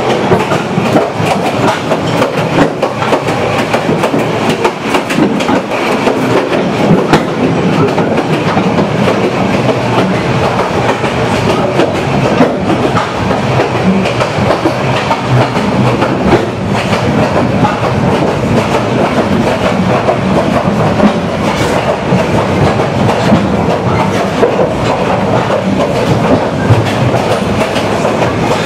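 Moving passenger train heard from inside an old carriage: a steady clatter of wheels over rail joints, with the carriage rattling and knocking throughout.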